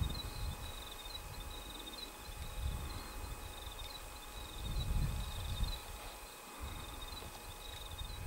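Insects chirping outdoors in a steady run of short, high, repeated chirps. Low rumble on the microphone swells and fades, loudest about halfway through.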